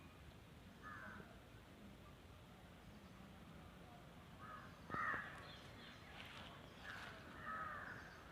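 Crows cawing faintly, a few separate harsh calls: one about a second in, the loudest about five seconds in, and a couple more near the end.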